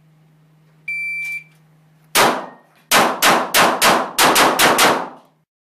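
Electronic shot timer's start beep, a single high steady tone of about half a second, then a pistol fired about nine times: one shot about a second after the beep, then a rapid string of eight at roughly three shots a second.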